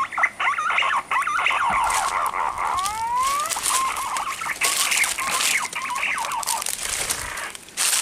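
Birds calling with rapid, wavering whistles. In the second half this is joined by repeated splashing from a shot green pigeon beating its wings in shallow water.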